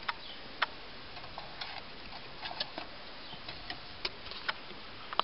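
Scattered small clicks and taps at irregular intervals over a steady hiss, from hands working the car stereo and handling the camera.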